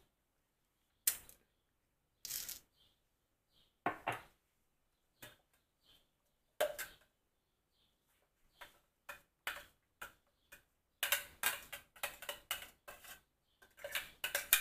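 Kitchen clatter of a plastic blender cup and a smoothie glass being handled: separate knocks and clinks about a second apart, turning into a quick run of tapping in the last few seconds as the blender cup is tipped and tapped out over the glass.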